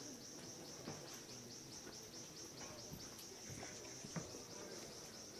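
Faint insect chirping: a high, even pulsing trill of about five pulses a second, with a few soft scattered knocks.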